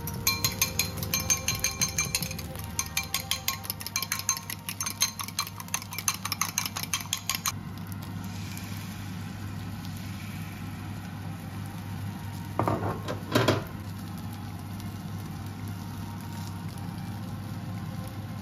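Eggs being beaten in a glass bowl with a metal utensil: rapid, rhythmic clinking with a slight ring, about four strokes a second, which stops after about seven seconds. A short clatter follows a little past the middle, over a steady low hum.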